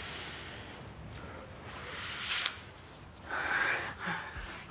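Kissing sounds: soft breathing and lip sounds from two people kissing close up, with two stronger breaths, one about two seconds in and one past three seconds. A low thump comes near the end.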